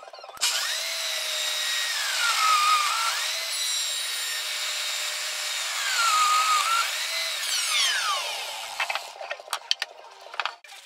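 Electric router starting up and running at high speed, its pitch sagging twice as it is pushed through the maple under load, then switched off and winding down with a falling whine. A few sharp clicks and knocks follow near the end.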